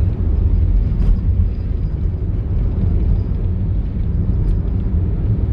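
Steady low rumble of a car driving on the road: tyre, road and engine noise inside the moving car.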